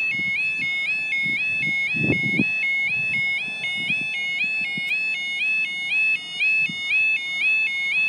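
Railway level crossing audible warning alarm (a UK yodel-type alarm) sounding: an electronic warbling tone that steps up and repeats about three times a second, warning that a train is approaching.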